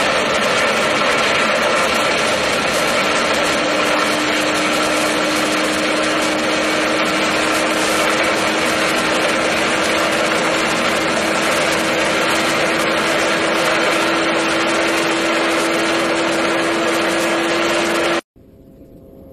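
Streamlined land-speed motorcycle running flat out, heard from inside its cockpit: a loud, steady rush of engine and wind noise with a steady engine tone that climbs slightly. It cuts off abruptly near the end.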